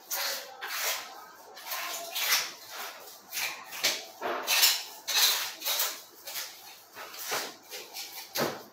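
Boning knife cutting through a raw pork shoulder as the meat is worked off the bone, a run of short, irregular strokes about one to two a second.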